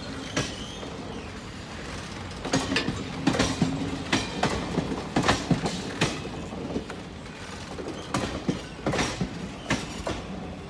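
Train of blue passenger coaches rolling past as it pulls out of the station, wheels clacking irregularly over rail joints over a steady rumble of running gear.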